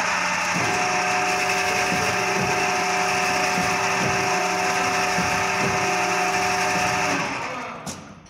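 Vertical cylinder honing machine running, its honing head turning and stroking in an engine block's cylinder bore: a steady mechanical whir and grind with a faint knock now and then. It winds down and stops about seven seconds in, and a short click follows near the end.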